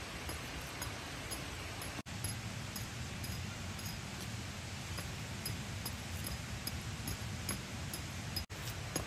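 Steady rushing of a spring's water, with faint, high chirps repeating about twice a second. The sound cuts out for an instant twice.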